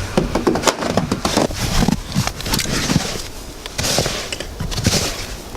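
Footsteps crunching in fresh snow, a quick irregular run of sharp crackles with a couple of louder rushing surges near the end.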